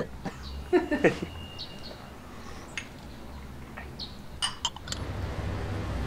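Light clinks of a porcelain gaiwan lid against its teacup, with a few short bird chirps.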